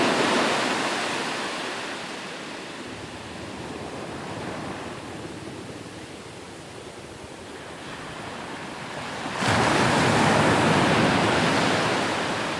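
Sea waves breaking and washing on a shore: one wave's rush fades over the first couple of seconds into a quieter wash, then another wave breaks suddenly about three quarters of the way through and slowly dies away.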